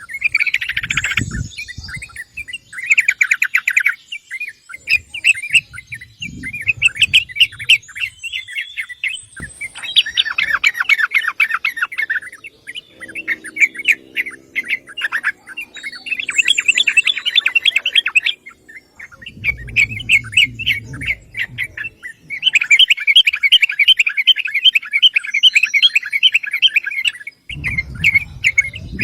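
Yellow-vented bulbul calling in bursts of rapid, chattering notes, each run lasting a few seconds with short pauses between.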